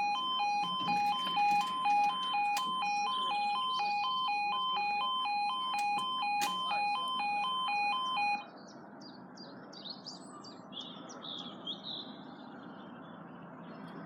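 Railway level crossing's electronic warning alarm, a two-tone sound alternating between a lower and a higher pitch, cutting off suddenly about eight seconds in. Birds chirp and sing after it stops.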